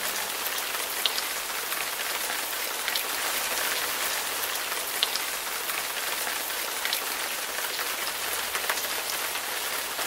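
Steady pattering hiss of falling water, sprinkled with faint light ticks.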